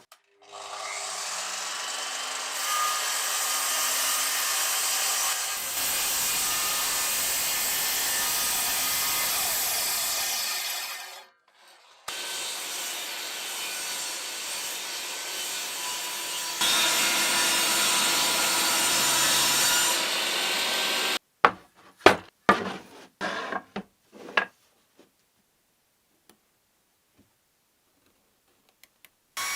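A power tool working on wood in two long steady stretches, with a few sharp knocks after it near the end.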